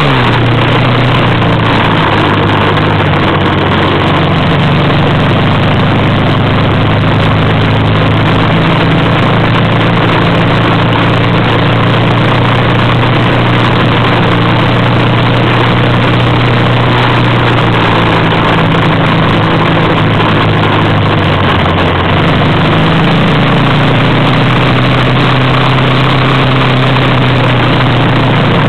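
Off-road vehicle engine running steadily under load while driving across sand, its pitch shifting a little a few times, over a constant rushing noise.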